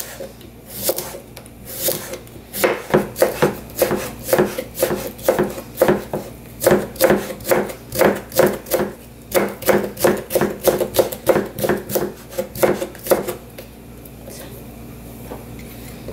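Cucumber being cut into thin strips with a ceramic knife on a wooden cutting board: quick, even taps of the blade on the board, about three to four a second. The taps start a couple of seconds in and stop a couple of seconds before the end.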